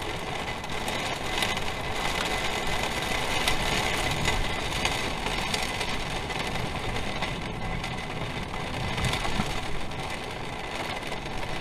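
Strong thunderstorm wind whipping, a steady rushing noise with many small ticks in it.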